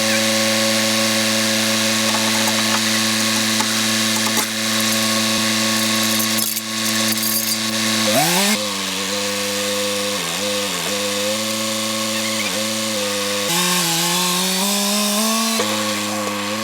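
An engine running steadily, then revving about halfway through, its speed dipping and recovering several times as if working under load.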